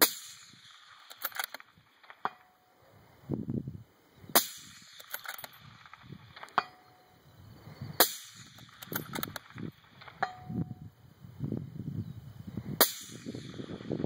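Suppressed .308 Remington 700 bolt-action rifle fired four times, about four seconds apart, with clicks of the bolt being worked after the shots. Roughly two seconds after each of the first three shots comes a faint, short ring: the bullet striking the distant steel plate.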